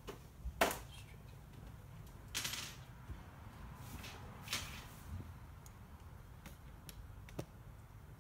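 Scattered light clicks and knocks from small parts and wiring being handled, with a brief rustle about two and a half seconds in.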